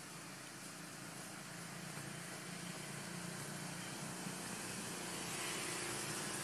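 Steady outdoor background noise: an even hiss with a low hum under it, growing a little louder and brighter near the end.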